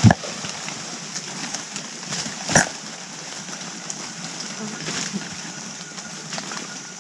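Agile mangabeys moving about close to the camera on the forest floor and tree trunk. Two sharp knocks stand out, one right at the start and one about two and a half seconds in, over a steady high hiss of forest background.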